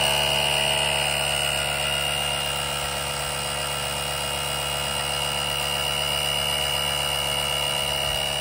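Andeman cordless tire inflator's compressor running steadily, a mechanical buzz with a high whine, pumping air into a car tire toward its 34 PSI preset.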